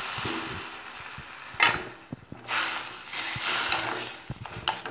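Grated beetroot sizzling in a hot steel kadai just after a little water is poured in, while a metal spatula scrapes and stirs it against the pan. The sizzle fades gradually, with a loud scrape about one and a half seconds in, more scraping in the middle and a sharp click near the end.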